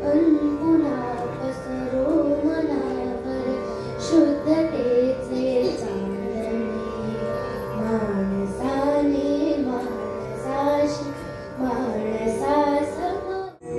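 Marathi song sung live by one voice in a light-classical style, its ornamented melodic phrases rising and falling over held, steady instrumental tones. The music drops out for an instant near the end.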